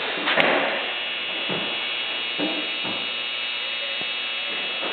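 Steady background hum made of several held tones, with a sharp click about half a second in and a few faint handling sounds.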